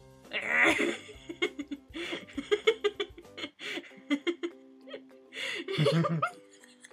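A man laughing and giggling in repeated short bursts, loudest about half a second in and again near the end, over quiet background music with steady held notes.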